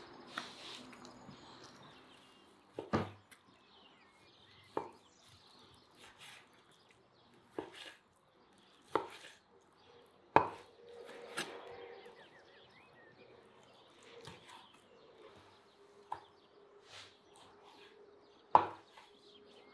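Kitchen knife cutting raw meat on a wooden cutting board: about ten sharp knocks of the blade hitting the board, irregularly spaced with quiet gaps between.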